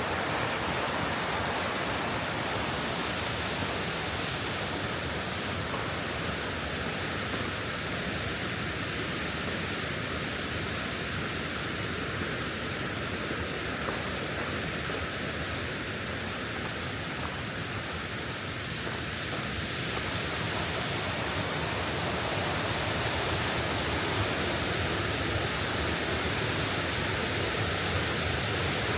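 Waterfall: the steady rush of falling water, dipping slightly in loudness near the middle and swelling again later.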